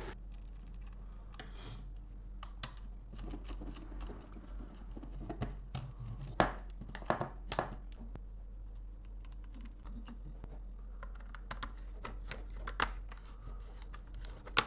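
Irregular small clicks and scrapes of a screwdriver working the terminal screws of a plastic DIN-rail timer switch while a wire is pushed into its terminals.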